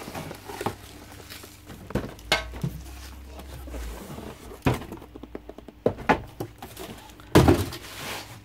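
Cardboard box flaps and plastic bubble wrap rustling and crinkling as a boxed canister filter is unpacked by hand, with several sharp knocks and thumps from the cardboard and the filter body, the loudest near the end.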